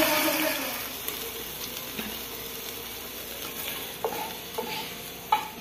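Sofrito of onion, peppers and garlic sizzling in hot oil in a frying pan as a metal spoon stirs it; the sizzle dies down after about the first second. About four seconds in, a few knocks and scrapes of the spoon against the pan as the sofrito is scraped out.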